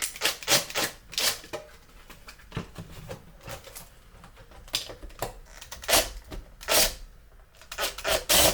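Drill with a 15 mm bit boring into a 3D-printed plastic part in short, irregular bursts, the bit scraping against the plastic.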